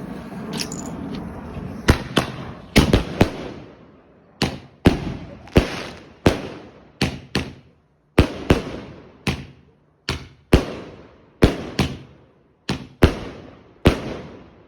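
Roman candles firing: a steady hiss of burning fuse, then a rapid series of sharp bangs about two seconds in, often coming in quick pairs, each with a short echo, that stop shortly before the end.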